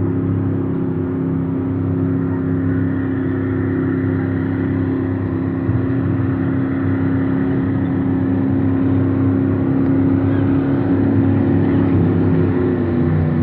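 High-horsepower jet boat engine running steadily at speed, a loud continuous drone whose pitch shifts slightly near the end.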